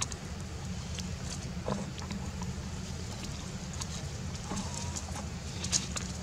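Steady low rumble of wind on the microphone, with a few short crackles of dry leaves as monkeys move on the leaf litter.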